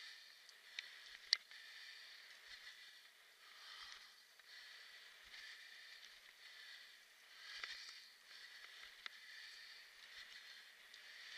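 Faint rolling and rattling of a kick scooter ridden over a leaf-covered dirt trail: a thin hiss that swells and fades every few seconds, with a few sharp clicks from bumps, the loudest just over a second in.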